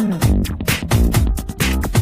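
Upbeat electronic dance music with a steady, fast drum beat and a bass line.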